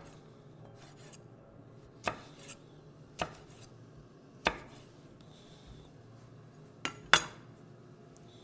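Kitchen utensils knocking and clicking during chili garnishing: five sharp, separate clicks at irregular intervals, the loudest near the end.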